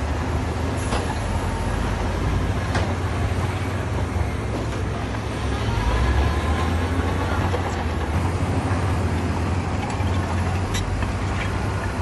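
Heavy diesel construction machinery running: a steady, low engine rumble, with a few sharp clicks scattered through it.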